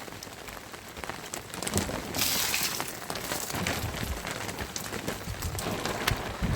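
Rain falling steadily, with many individual drops ticking sharply on nearby surfaces. About two seconds in, a brief, louder hiss lasts around half a second.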